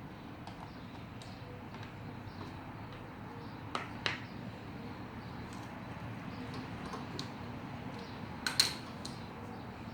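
Light clicks and taps of a screwdriver and small parts being handled while a lawnmower's carburetor is taken apart, with two sharper double clicks, one about four seconds in and one near eight and a half seconds, over a steady low background hum.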